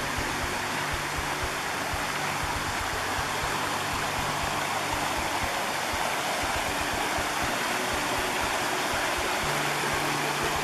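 A river running over a shallow, rocky bed: a steady rush of water through the riffles.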